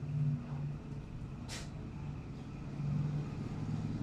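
Motor vehicle engine running, a low steady drone that wavers slightly in pitch, with one short hiss about a second and a half in.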